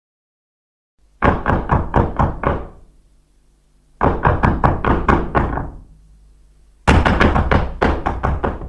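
Knocking on a door: three quick runs of about seven knocks each, a second or so apart, each knock sharp with a short ring after it.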